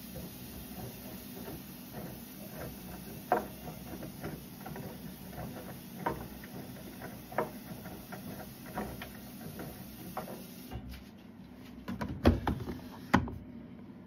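Siemens front-loading washing machine running a wash, a steady low hum with scattered light clicks and taps. About twelve seconds in come a few louder plastic clunks as the detergent drawer is pulled open.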